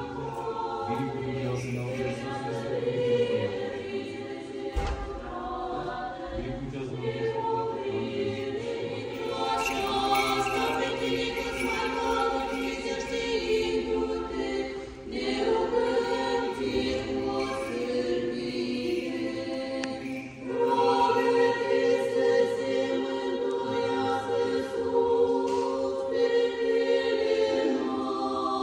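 Church choir singing Orthodox liturgical chant unaccompanied, in long held phrases, growing louder about twenty seconds in.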